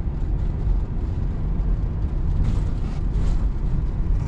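Steady low rumble of a vehicle driving on a snow-packed road, heard inside the cab: engine and tyre noise with a light hiss above it.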